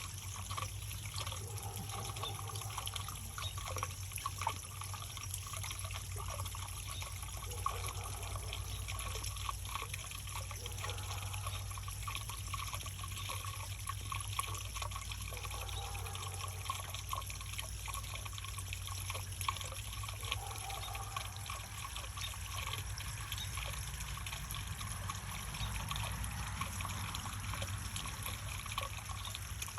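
Water trickling and splashing steadily down a JAS3000BLK rain chain, a continuous patter of many small splashes, over a constant low hum.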